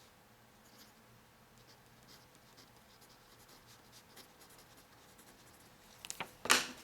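Handwriting on paper: faint, scratchy strokes of a writing tip, growing louder with a few sharp strokes near the end.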